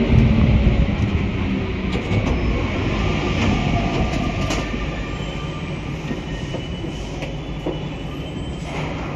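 Rubber-tyred MP14 metro train running through a tunnel as a train on the other track rushes past alongside. The rumble is loudest at the start and eases as the other train's end goes by, with a couple of clicks and faint squeals.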